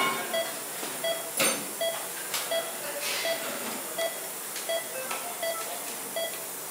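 A patient monitor's pulse-oximeter tone beeping steadily, a short beep a little faster than once a second, keeping time with the anaesthetised patient's pulse. A few short rustling noises come in between.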